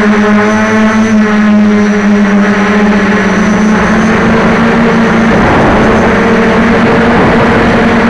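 Quadcopter motors and propellers buzzing loudly at close range, a steady droning whine heard from the craft itself. The pitch wavers and blurs around the middle as the throttle changes through a manoeuvre, then settles again.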